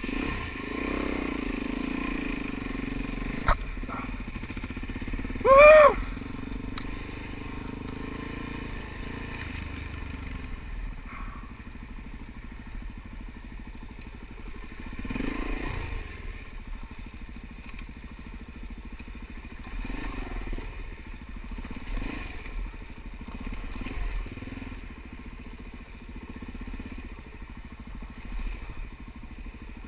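Suzuki DR-Z dual-sport motorcycle's single-cylinder engine running at low speed on a rough track, the throttle swelling and easing every few seconds, with tyres crunching over gravel and stones. A brief, loud pitched sound like a shout about six seconds in.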